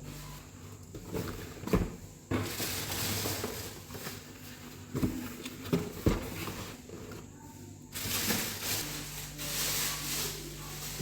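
Household handling sounds: a few dull knocks and some rubbing, the sharpest about two seconds in and again around five to six seconds in, between stretches of soft hiss.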